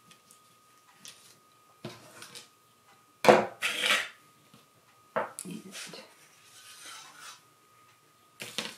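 A paper shadow puppet on wooden dowel rods is handled and lifted off a cardboard board: scattered rustles and knocks, the loudest a sharp clatter and rustle about three seconds in. A faint steady high hum lies underneath.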